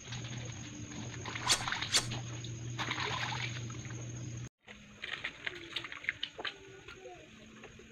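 Clothes being scrubbed and wrung by hand in a plastic basin of water: sloshing and dripping over a steady low hum, with two sharp clicks about a second and a half in and two seconds in. After a short break, quieter scattered clicks and knocks.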